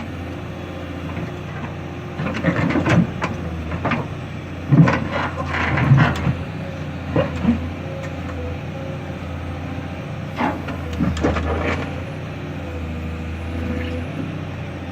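Caterpillar 320D hydraulic excavator's diesel engine running steadily, with irregular bursts of clanking and scraping as the machine handles a heavy block.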